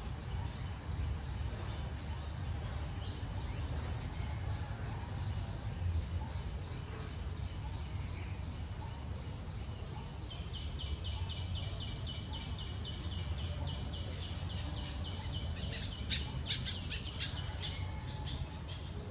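Outdoor ambience: a steady low rumble, with a rapid, high-pitched chirping trill from a bird or insect starting about halfway through and growing louder near the end.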